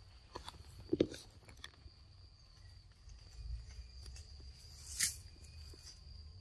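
A steady high insect drone in the forest under scattered snaps and rustles of branches and leaves as macaques climb and move in the tree, the loudest snap coming about five seconds in.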